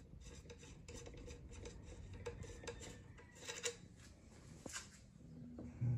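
Metal thread protector being unscrewed from a Ruger American Predator's threaded muzzle: faint rubbing of the threads and small metallic clicks, with sharper clicks about three and a half and nearly five seconds in. A short low sound comes just before the end.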